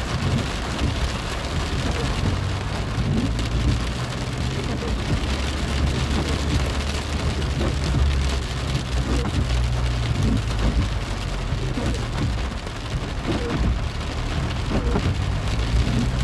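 Rain falling on a car's windscreen and roof, heard from inside the cabin, a steady patter over a low, continuous rumble.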